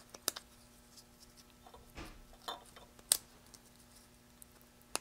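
A few sharp clicks and snips of small hand cutters working at the heat-shrink tubing on an LED bulb's driver board, the sharpest about three seconds in, with a dull knock about two seconds in.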